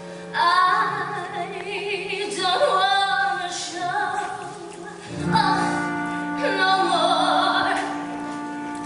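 A woman singing live in an operatic style, holding notes with a wide vibrato, over a band's sustained chords. She sings in two long phrases, the second starting about five seconds in.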